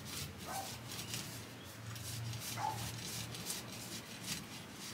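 A dog barking faintly, a few short barks spaced about two seconds apart.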